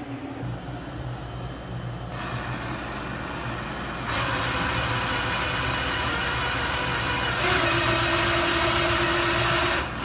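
Milwaukee cordless drill driving a 2¼-inch (57 mm) hole saw into a wooden desktop: motor whine mixed with the rasp of the saw teeth cutting wood as the cut is started from the top. It starts about two seconds in, gets louder about four seconds in and again past seven seconds, then stops abruptly near the end.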